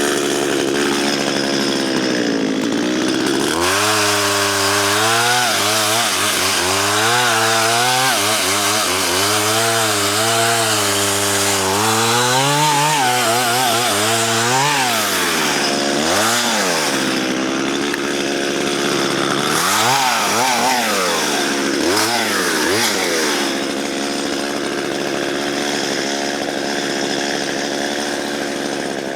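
Chainsaw cutting through a fallen dead spruce log with a dull chain, held at high revs. Its pitch wavers and sags under load, with several sharp drops and recoveries in the middle. The dull chain is why it has to be revved this hard to get through the wood.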